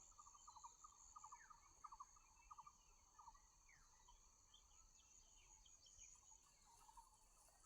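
Faint outdoor ambience: a steady high-pitched insect drone, with trains of quick repeated chirping calls and a few short falling chirps from small animals or birds.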